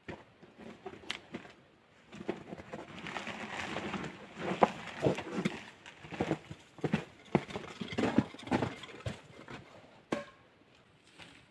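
Dry sticks and branches being handled and sorted by hand: rustling with a run of irregular wooden knocks, ending in a sharp crack near the end.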